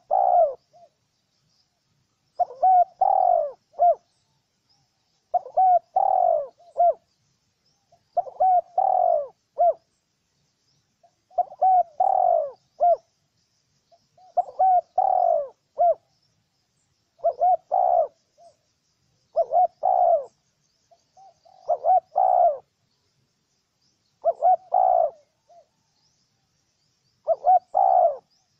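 Spotted dove cooing: the same short phrase of a few coo notes, repeated about every two and a half to three seconds. Faint high chirps of small birds sound behind it.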